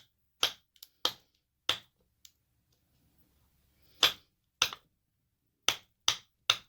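A series of about eight sharp clicks and taps of small metal lock parts being handled while a Mul-T-Lock cylinder is taken apart, in two groups with a pause of about two seconds between them.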